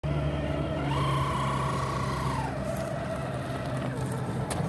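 Redcat Gen8 RC rock crawler's electric motor and geartrain whining as it climbs over rock and gravel. The pitch steps up about a second in and glides back down after a couple of seconds. A sharp click comes near the end.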